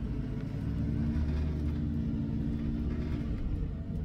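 Car driving past on the road, its engine a steady hum over a low rumble.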